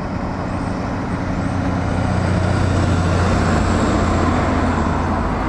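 Concrete mixer truck driving past on a road, its diesel engine running with a deep, steady note over road traffic noise. The sound grows loudest about three to four seconds in as the truck passes.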